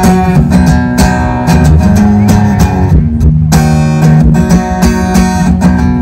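Acoustic guitar strummed in steady chords, amplified through a stage PA, with a brief pause in the strumming about three seconds in.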